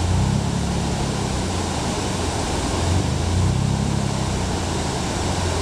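Steady rushing of river water pouring over a low weir, a continuous noise heavy in deep rumble.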